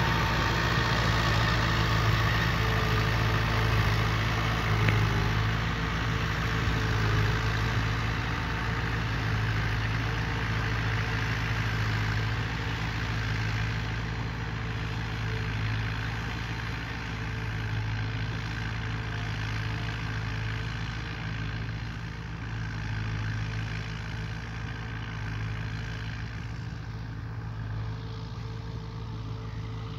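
Fiat tractor's diesel engine running steadily and gradually fading as the tractor moves away across the field.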